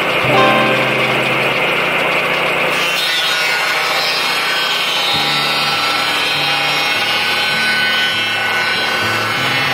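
Lucas Mill swing-blade sawmill running, its circular blade sawing lengthwise through a log as the carriage is pushed along; the sound changes character about three seconds in.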